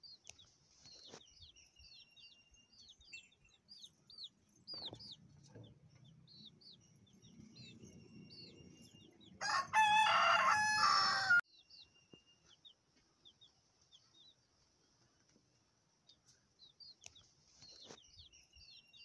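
A rooster crows once, about halfway through, a loud call of about two seconds. Faint, short, high chirps go on throughout.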